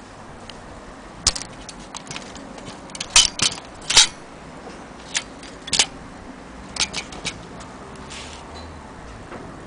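Sharp mechanical clicks and clacks at irregular intervals, a cluster of the loudest about three to four seconds in, as a small metal mechanism is handled and worked.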